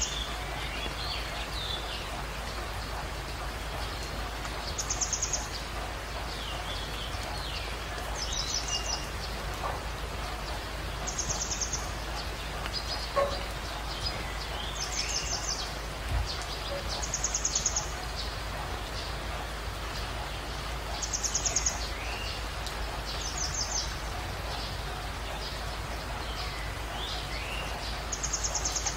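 Birds calling over a steady hiss: a short, fast trill repeats every two to three seconds, with softer chirps in between.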